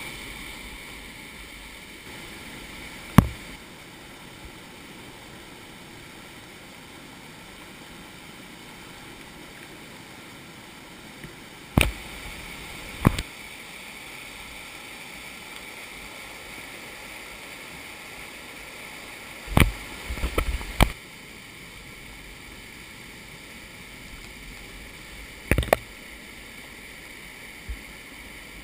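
Whitewater rapid rushing steadily, broken by several sharp knocks: one about three seconds in, two close together around twelve seconds, a quick cluster around twenty seconds and one more near twenty-six seconds.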